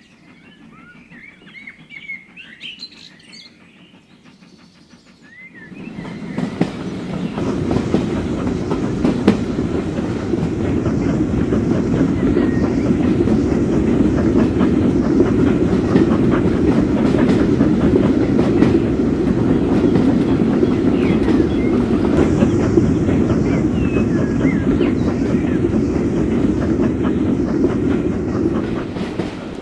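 Birds chirping faintly for the first few seconds, then a model tinplate train running on its track: a steady rolling noise with quick rail-joint clicks that comes in about six seconds in and eases slightly near the end.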